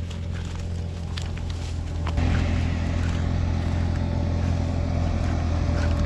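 An engine running steadily for the wheat-threshing machine in the field, getting louder about two seconds in.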